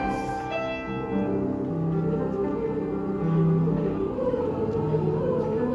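Music with choir singing long held notes; about four seconds in, a wavering voice line rises above the chords.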